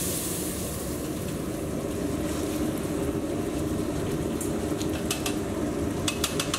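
Steady low rumbling noise of a working gas-stove kitchen, with a few light clicks of a spatula against a metal pan near the end.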